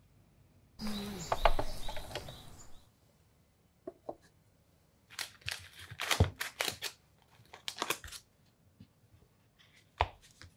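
Foil-lined paper butter wrapper rustling, crinkling and tearing as it is opened, with a loud crackly burst about a second in and more clusters of crackles a few seconds later. Near the end comes a single sharp click as a knife goes into the butter.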